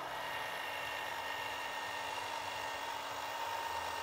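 Electric caulking gun's motor running steadily with an even whine, pressing Sika adhesive out of a cartridge.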